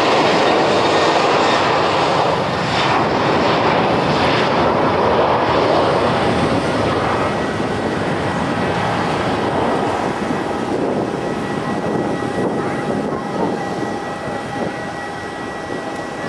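Boeing 737-800's CFM56-7B jet engines at takeoff thrust, a loud, dense noise that slowly fades as the aircraft moves away. Faint steady whining tones come through in the second half.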